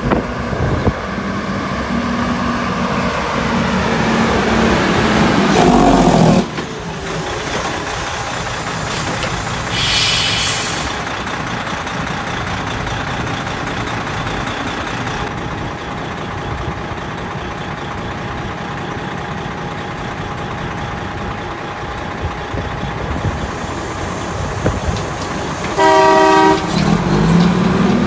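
Heavily loaded semi truck's diesel engine working hard, its pitch climbing over the first six seconds before it stops suddenly, then a steady engine drone. A short hiss of air comes about ten seconds in, and a truck horn blasts for about a second and a half near the end, followed by an engine revving up again.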